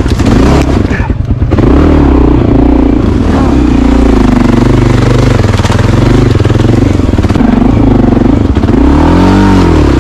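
Dual-sport motorcycle engine running at low trail speed, its pitch rising and falling with the throttle. It lulls briefly about a second in and gives a quick rev up and back down near the end.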